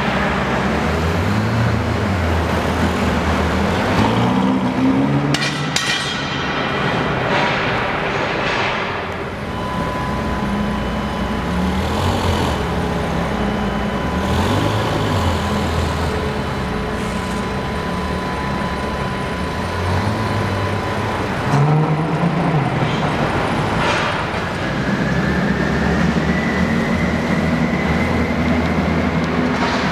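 Ferrari California T's twin-turbo V8 revving up and easing off again and again in street traffic, with other vehicles running around it.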